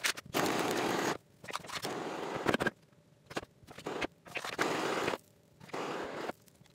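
A paintbrush scraping in repeated strokes over the rough, crinkled surface of a PET-bottle plastic sculpture. There are about four strokes of roughly a second each, with short scratches between them.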